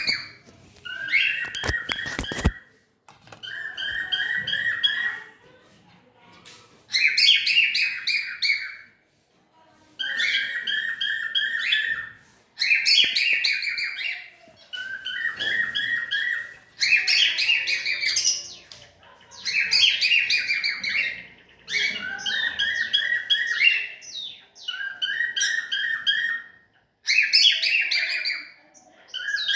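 A cockatiel calling over and over in buzzy chattering phrases of a second or two each, about a dozen, with short pauses between them. There are a few sharp clicks about two seconds in.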